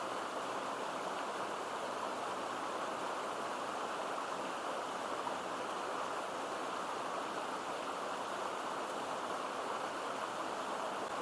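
Stream water babbling and rushing steadily, a continuous even sound with no breaks.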